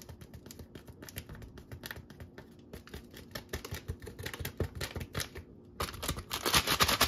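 Quick light clicks and scrapes of a measuring cup against a bowl as dry split pea powder and flour are scooped and measured, turning into a louder, denser rustling near the end.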